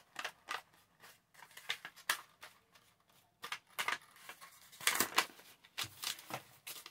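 Paper and craft materials being handled on a work surface: scattered light clicks and short rustles, with a cluster of louder ones about five seconds in.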